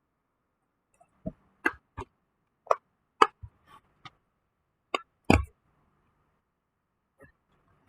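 A dozen or so sharp clicks and taps at irregular intervals, as of small hard objects being handled and set down. The loudest comes about five seconds in.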